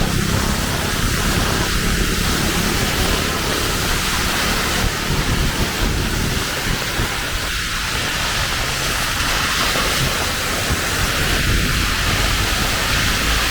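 Heavy rain pouring steadily, a dense even hiss, with a low rumble underneath.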